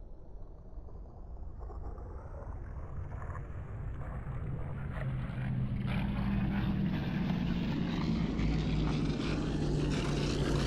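Synthetic riser sound effect: a low droning rumble that steadily grows louder and brighter throughout.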